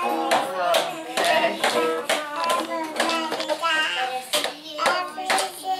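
A small stringed instrument strummed in an even rhythm, with a young child's voice singing and calling out over it.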